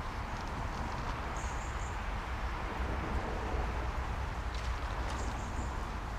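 Wind rumbling on the microphone over a steady outdoor background, with a few short high bird chirps and some faint clicks about two thirds of the way through.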